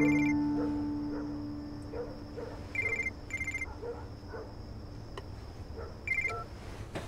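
Mobile phone ringing with a high trilling ring, two short rings in quick succession repeating about every three seconds. A low held tone fades away over the first two seconds.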